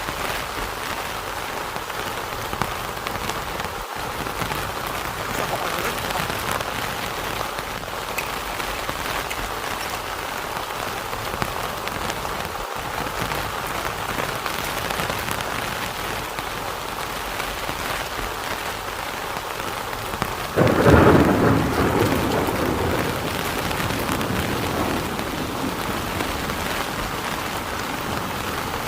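Heavy rain falling steadily, with a single clap of thunder about twenty seconds in that starts suddenly and rumbles away over a few seconds.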